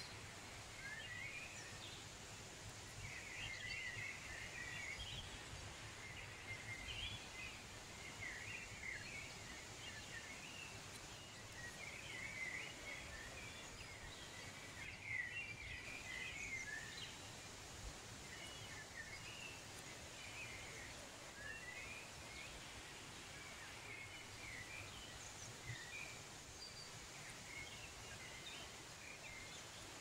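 Small birds chirping in frequent short twittering phrases, over a faint steady background hiss.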